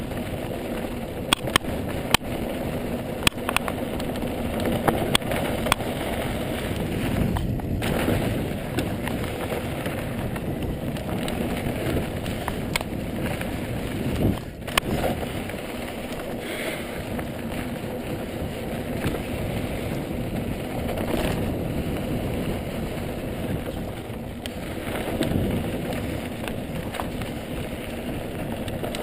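Ibis Mojo HD mountain bike ridden over a dirt trail: a steady rush of wind on the microphone and tyre rumble, with sharp clacks of the bike rattling over bumps, several in the first few seconds.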